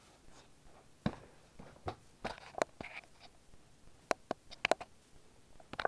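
Hands handling the cardboard collection box and its contents make about ten light, irregular clicks and taps, with faint rustling between them.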